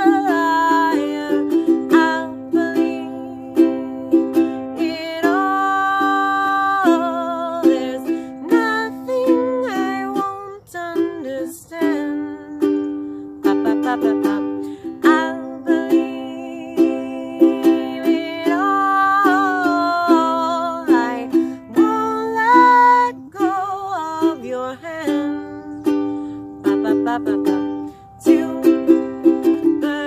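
A woman singing to her own ukulele accompaniment, the strummed chords running steadily under a sung melody with some long held notes.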